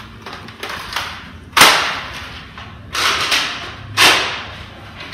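Toy foam-dart blaster being primed and fired: three sharp snaps, the first about one and a half seconds in and the last about four seconds in, each dying away quickly.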